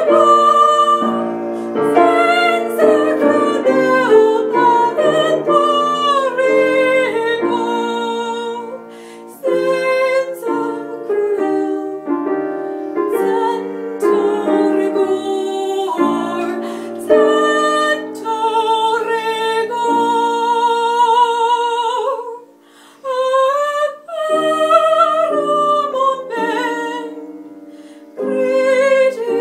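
A woman singing a slow, lyrical song in a trained voice with a wavering vibrato, over piano accompaniment. The sound drops away briefly about three-quarters of the way through, then resumes.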